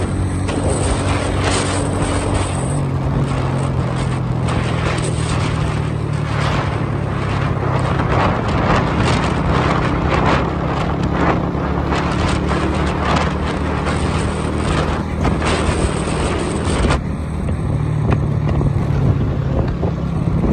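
Motorcycle engine running under way, its note rising about three seconds in and then holding steady, with wind and road noise rushing over the microphone.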